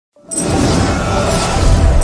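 A cinematic whoosh sound effect over a swelling intro music bed with a deep low rumble, starting suddenly about a quarter second in.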